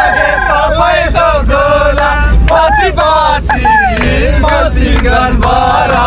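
A group of young men chanting and shouting together inside a bus, with the bus engine's low rumble underneath.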